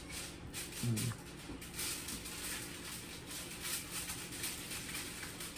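A person chewing a mouthful of food, with soft mouth and fork clicks and a short hummed "mm" about a second in.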